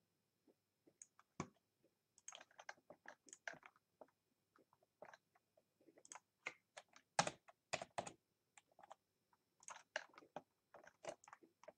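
Faint clicking of a computer keyboard and mouse: irregular keystrokes and clicks in quick clusters, loudest about seven to eight seconds in.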